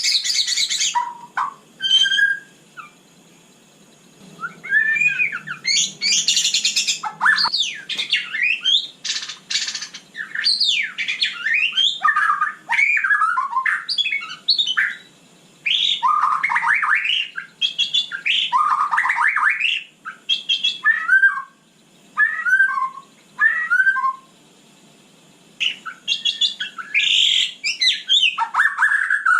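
White-rumped shama singing: a varied run of quick whistled and sweeping phrases, delivered in bursts with short pauses between them.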